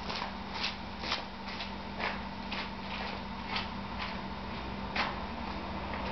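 Footsteps crunching on dry leaves and gravel, about two steps a second, over a steady low hum.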